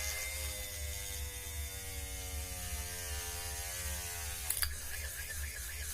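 Small DC motor of a homemade mini drill running with a high whine that slowly sinks in pitch. A sharp click comes about four and a half seconds in, and the whine then returns at a higher pitch.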